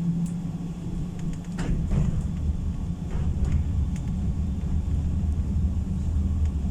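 PESA tram running, heard from inside the car: a steady low rumble of motors and wheels on rails that deepens and strengthens about a second and a half in, with a few light clicks and rattles over it.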